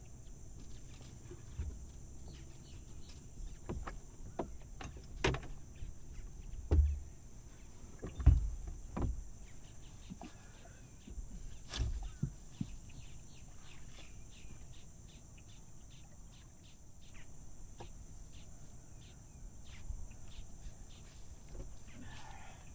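Knocks and thumps against a small fishing boat's hull and deck as the anchor line is hauled in and gear is handled aboard, several of them loud, followed by a run of light clicks and taps. A faint steady high hiss lies under it all.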